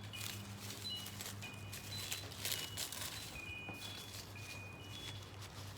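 Faint birds chirping, a scatter of short high whistled notes at several pitches, over soft crinkling of newspaper strips being pressed and dabbed with glue.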